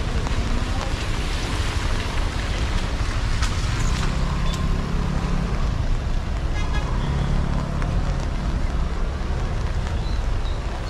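Wet city street in the rain: a steady hiss of rain and tyres on the wet road, with car engines humming past, one about four seconds in and another around seven seconds.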